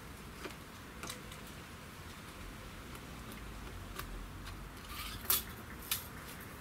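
A few faint clicks and taps from handling a tape measure and marking a wooden board, the sharpest click about five seconds in.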